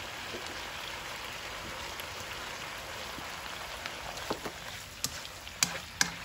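Chicken and black fungus mushrooms sizzling steadily as they stir-fry in a hot nonstick pan, with several sharp knocks of the spatula against the pan in the second half.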